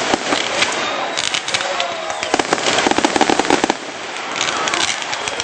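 Aerial fireworks crackling: four dense clusters of rapid sharp pops, each lasting about half a second to a second and a half.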